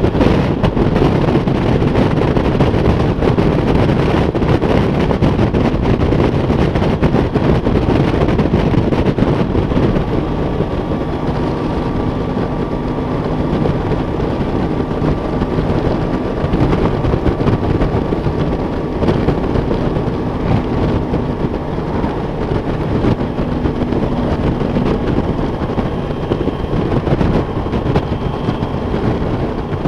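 Wind rushing over the microphone of a motorcycle being ridden at road speed, with a steady engine drone underneath. Faint steady tones join in about a third of the way through.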